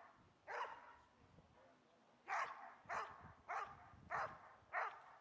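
A police-trained dog barking at a decoy who stands motionless, guarding him in a hold-and-bark exercise. It gives one bark, then after a pause a run of five barks at an even pace.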